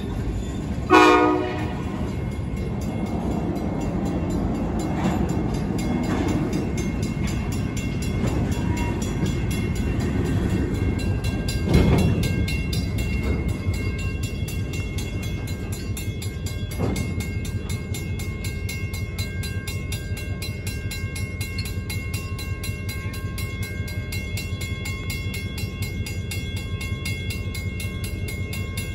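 Freight train rolling through a level crossing, with a short locomotive horn blast about a second in. The cars rumble and clank over the crossing, with two louder knocks, while the crossing's Western-Cullen-Hayes mechanical bell rings steadily throughout.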